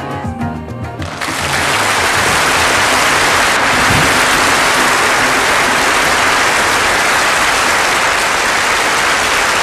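A band's final notes, keyboard and voices, die away about a second in, and an audience breaks into steady applause that carries on.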